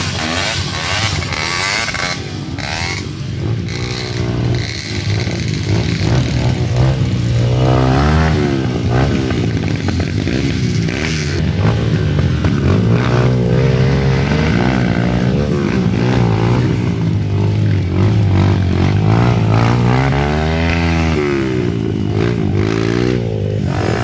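Dirt bike engines running and revving while the bikes climb through a muddy ditch, the pitch rising and falling as the throttle is worked, with two big rev swells, one about a third of the way in and another near the end.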